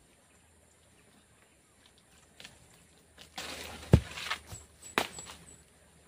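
Quiet at first, then a couple of seconds of rustling with two sharp knocks, the first the louder, about a second apart.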